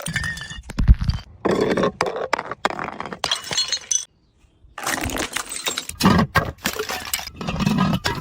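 Glass bottles smashing: a dense run of shattering crashes with tinkling shards. The sound cuts out completely for under a second about four seconds in, then the breaking resumes.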